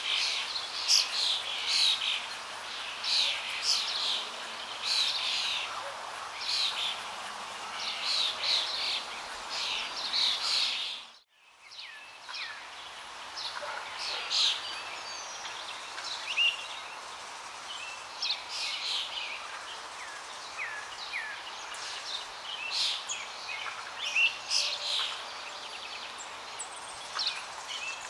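Many small birds chirping, with quick short calls coming thick and fast over a steady background hiss. The sound drops out for a moment about eleven seconds in, then the chirping resumes.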